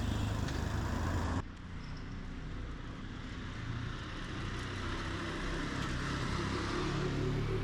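Street ambience of road traffic: a steady low rumble of cars that drops off abruptly about a second and a half in, then slowly builds again.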